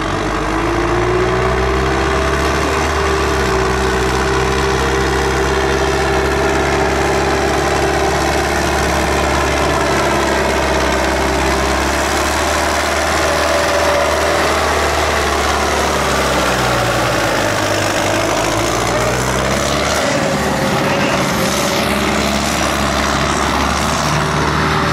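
Zetor ZTS 16145 tractor's diesel engine running hard under load as it pulls through loose dirt, with a steady whine above the engine note. The engine pitch sags briefly about two-thirds of the way through, then comes back up.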